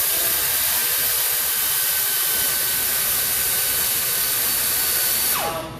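A loud, steady spray hiss that starts abruptly and cuts off after about five seconds, with a short falling tone as it stops.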